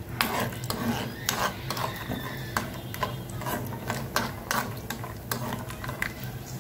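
Cashews and almonds frying in oil in a nonstick frying pan, stirred with a spatula: repeated irregular scrapes and clicks of the spatula and nuts against the pan over the sizzle of the oil.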